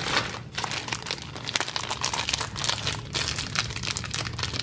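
Plastic snack-cake wrapper with a foil lining being crinkled in the hands and torn open: a dense, continuous crackling.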